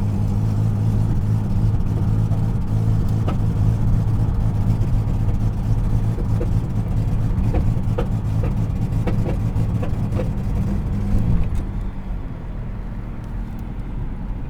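1997 Dodge Avenger's 2.5-litre V6 under hard throttle. The engine note holds at one steady pitch instead of climbing, then falls away about eleven seconds in. This is the bogging noise of the engine bogging down and shuddering around 2000 rpm, a misfire-like fault the owner has not yet traced.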